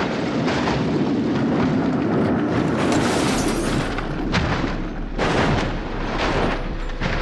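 A small car tumbling down a steep rocky slope: a continuous rumble of crashing metal and sliding stones, then separate heavy impacts about four and five seconds in and again near the end.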